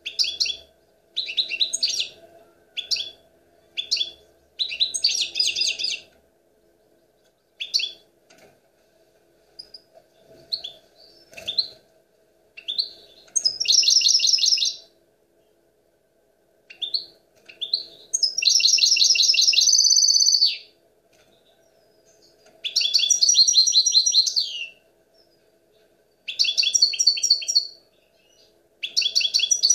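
European goldfinch song of the kind keepers call 'nahrat'. It opens with short, separate twittering notes, then from about halfway goes into several longer, dense, trilled phrases, each lasting one to two and a half seconds, with short pauses between them.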